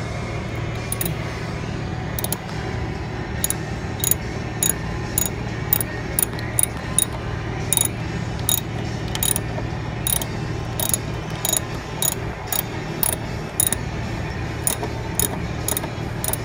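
Hand ratchet clicking in short runs, about two clicks a second, as it tightens a fastener of the clutch cable mount into sheet metal. A steady low hum lies under it.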